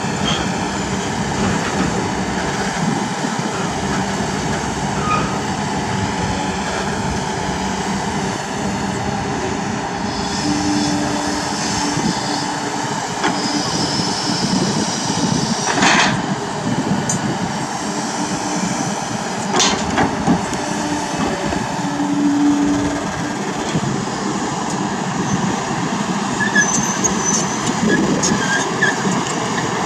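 Kobelco SK200 hydraulic excavator's diesel engine running steadily under working load, with high squeals from the machine's hydraulics and metal parts. Two sharp metallic knocks land a few seconds apart midway through.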